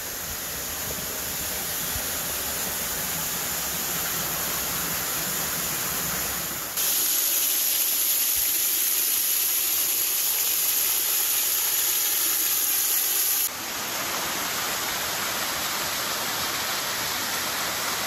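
Small waterfall splashing down over rock: a steady rush of falling water. It turns abruptly louder and brighter about seven seconds in, then drops back just past the thirteen-second mark.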